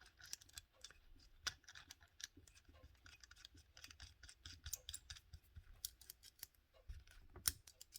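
Faint, irregular small clicks and scrapes of hands handling a mini rotary tool, fitting its collet back into the nose.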